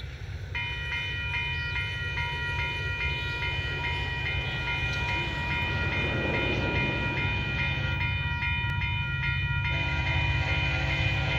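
Railroad grade-crossing warning bell starts ringing about half a second in, repeating at about two dings a second: the crossing has activated for an approaching train. Near the end a Union Pacific locomotive horn starts to blow over the bell.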